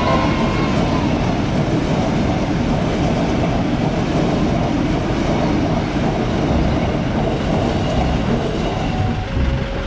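Commuter train passing over a level crossing close by, a loud, steady rumble and rattle of wheels on rails. Steady tones start near the end.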